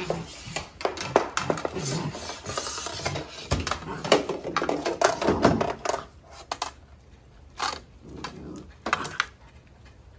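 Broom handle knocking and clattering on stone paving as a puppy grabs and drags the broom, with rapid clicks and knocks for about six seconds, then only a few scattered knocks.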